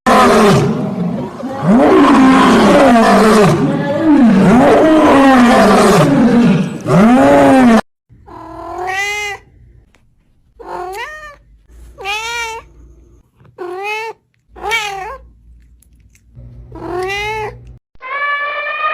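Cat sound effects: first about eight seconds of loud, harsh yowling with repeated rising-and-falling wails, which cuts off suddenly. Then six separate meows about a second and a half apart, each rising and then falling in pitch.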